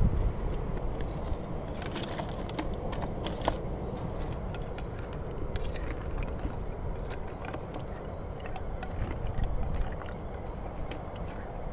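Outdoor ambience: a steady low rumble with scattered light clicks and crackles and a faint steady high tone.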